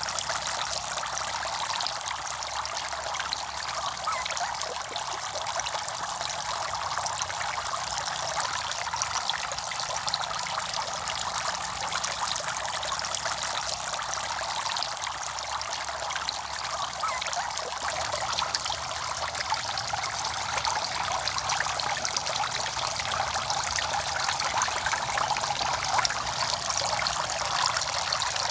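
Several small fountain jets splashing steadily into a shallow pond: a continuous trickle and patter of falling water.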